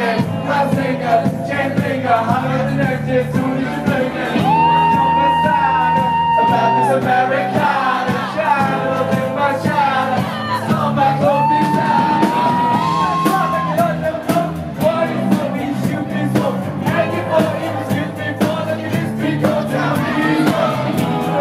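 Live band playing with singing, amplified in a hall. Long high held notes sound about four and a half seconds in and again around eleven seconds in.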